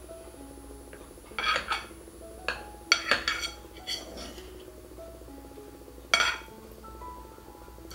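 Metal spoon clinking and scraping against a ceramic bowl while scooping up rice, in quick clusters about a second and a half in, around three seconds, and again just after six seconds. Soft background music plays throughout.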